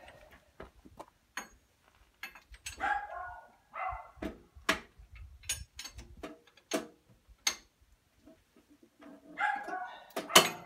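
Sharp metallic clanks and clinks of a wrench and other hand tools on the Štore 404 tractor's rear axle and brake assembly, single knocks spaced about a second apart. A few short vocal sounds come in between them.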